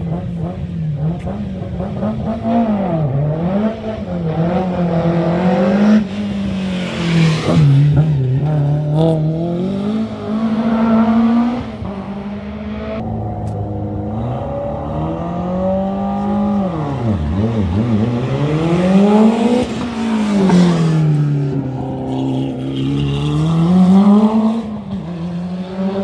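Historic rally car's engine revving hard, its pitch rising and falling again and again, with louder peaks near the middle and near the end.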